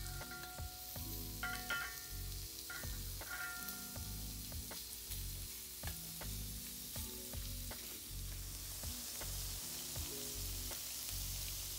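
Shrimp sizzling in hot sesame oil in a wok: a steady frying hiss with small pops and crackles, under background music.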